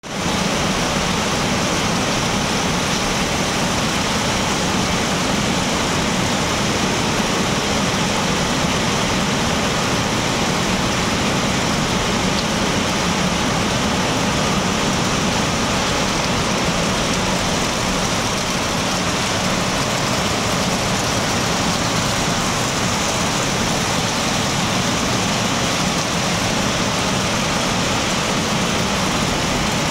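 Heavy rain in a sudden downpour, a loud, even hiss.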